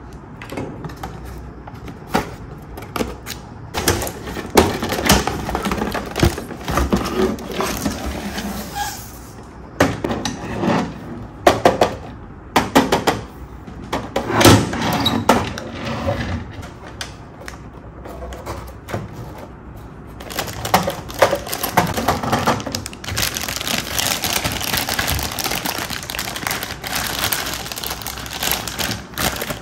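Hands handling cardboard and hard plastic toy parts: scattered taps, knocks and clicks. From about twenty seconds in, a clear plastic bag is crinkling.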